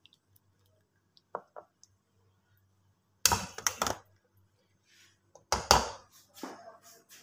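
Metal serving ladle clinking and scraping against a steel cooking pot as curry is scooped out: a couple of light taps, then louder clattering about three seconds in and again near six seconds.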